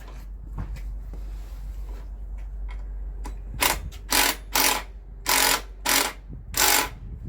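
Socket ratchet clicking in a run of short strokes, some in quick pairs, as pannier rail bolts are tightened.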